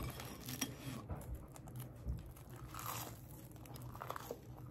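Someone biting into and chewing a freshly made grilled cheese sandwich: quiet, scattered crunches of the toasted bread.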